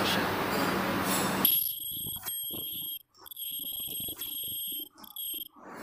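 A surgical-mask earloop welding machine running with an even whirring noise and a low hum. This cuts off abruptly about a second and a half in. From then on a high-pitched, alarm-like electronic tone sounds, broken by a few brief gaps.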